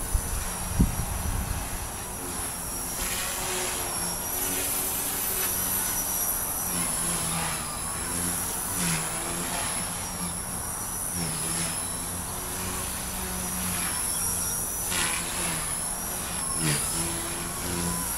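Blade mCP X BL micro collective-pitch helicopter in flight: its brushless motor and spinning rotor give a high whine over a lower hum, both wavering and dipping as throttle and blade pitch change. A single brief thump sounds about a second in.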